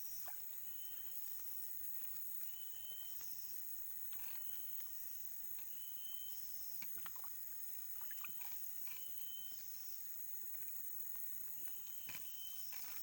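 Forest ambience: a steady high drone of insects, with short, flat, high-pitched animal calls repeating about once a second and a few faint ticks.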